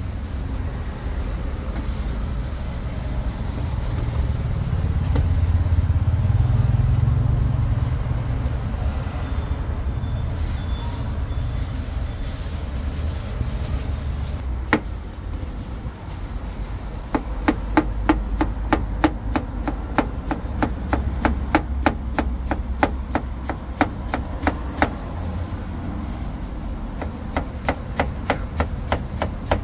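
Kitchen knife slicing an onion on a wooden cutting board: quick, even knocks of the blade on the board, about four a second, in two runs through the second half. Underneath, a steady low rumble of traffic that swells once for a few seconds.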